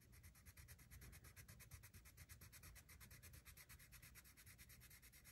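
Faint colored pencil scribbling back and forth on paper in quick, even strokes while a swatch is filled in.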